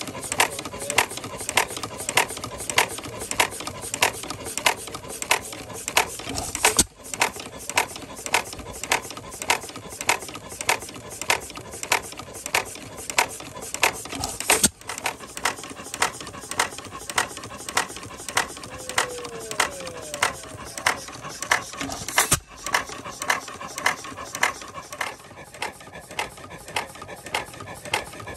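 Circa-1908 Fairbanks Morse 4 hp Model T stationary engine running on its first run after being freed up, with a sharp, even beat about twice a second and the clatter of its exposed gears and linkage.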